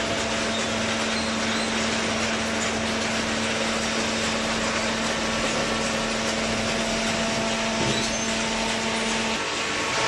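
Hydraulic cardboard baler running: a steady machine noise from its motor and hydraulic pump, with a constant low hum that cuts out shortly before the end.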